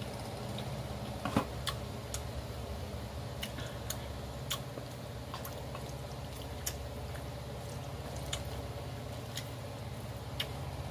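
Close-up eating sounds as beef and noodles are eaten with wooden chopsticks: about a dozen sharp, irregular clicks, the loudest about a second and a half in, over a steady low hum.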